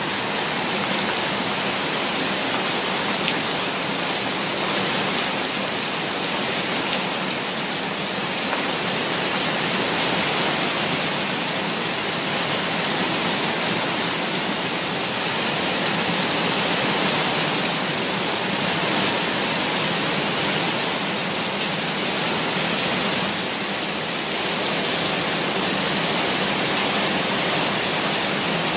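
Heavy rain falling while floodwater rushes and cascades down concrete steps and ledges, a loud, steady rush of water that keeps up without a break.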